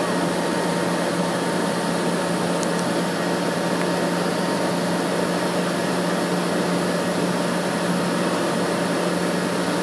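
Steady cabin noise inside a taxiing airliner: an even rush of air with a constant low hum, unchanging throughout.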